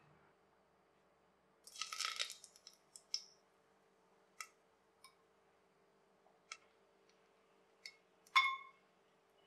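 Whole spices dropped one at a time into hot ghee and oil in a stainless steel pressure cooker: a short crackle as the bay leaf goes in about two seconds in, then scattered light ticks and sizzle pops, and near the end a louder tick that rings briefly as the cinnamon stick hits the steel pan.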